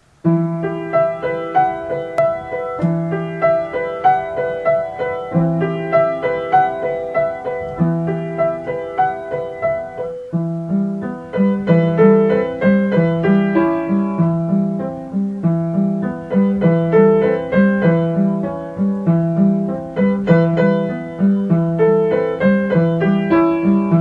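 Background piano music: a melody over repeated bass notes, moving into a new passage about ten seconds in.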